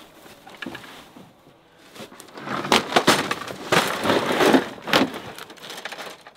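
Crackling and rustling of dry grass brush and a plastic bag as hunting gear is handled and packed into a cargo trailer. It starts about two and a half seconds in and lasts about three seconds.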